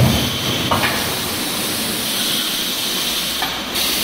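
Automatic wire mesh welding and cutting line running: a steady machine noise with a hiss, and a short thump right at the start.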